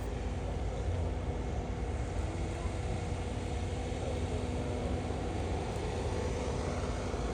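Steady outdoor background rumble with a faint continuous hum, and no single event standing out.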